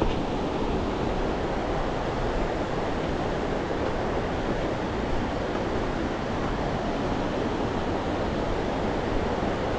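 Steady rush of a fast-flowing mountain river.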